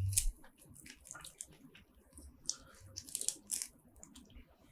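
Close-up eating of a spicy seafood boil: wet clicks, crackles and tearing sounds of seafood and shells being handled, peeled and bitten, in short scattered bursts.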